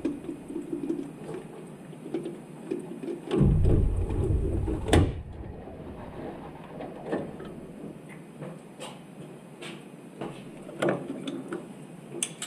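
Parts and tools being handled: scattered light clicks and knocks, with a heavier low thump about three and a half seconds in and a sharp click at five seconds.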